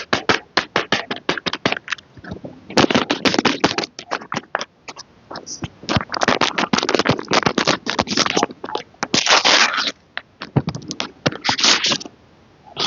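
Packaging being handled and opened: dense crinkling, crackling and scraping in quick bursts, with short pauses between them.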